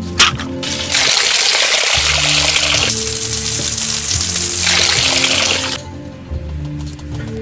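Water pouring in a steady rush, starting about a second in and stopping sharply near the end, over background acoustic guitar music.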